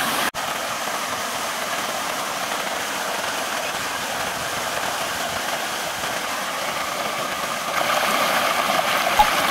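Shallow mountain river rushing over rocks in a steady wash, with splashing as a small child wades through it; a little louder about eight seconds in.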